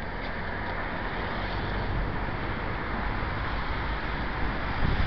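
Steady rushing noise with gusts of wind buffeting the microphone.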